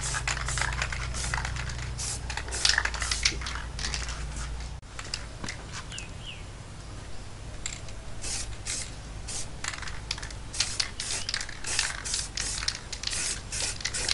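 Primer being sprayed onto drill press parts in many short hissing bursts, over a steady low hum.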